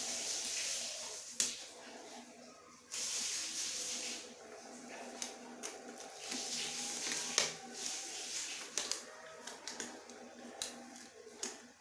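Repeated bursts of hissing noise, each a second or two long, with scattered light clicks and knocks over a faint steady hum.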